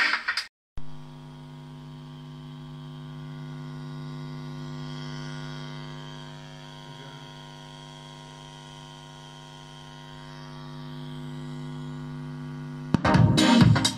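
Steady electrical hum from a loudspeaker driven by a TPA3118 mono class-D amplifier board with no music playing; it swells and fades gently in level. Electronic music is cut off just after the start, and music with drums starts through the speaker about a second before the end.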